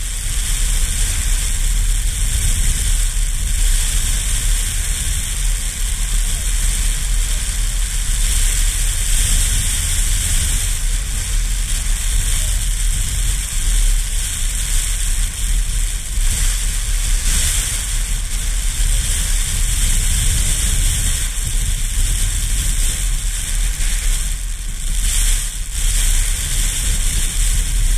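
Strong wind buffeting an action camera's microphone: a steady low rumble under a high hiss.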